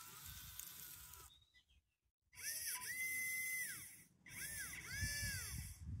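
Electric drive motors of a 3D-printed 1/32-scale RC bulldozer whining in three bursts of a second or two. Each burst rises in pitch as the motors speed up and falls as they slow, with short pauses between them.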